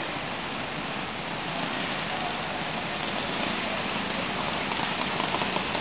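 Kid karts' small engines running on the track, heard as a steady, noisy drone.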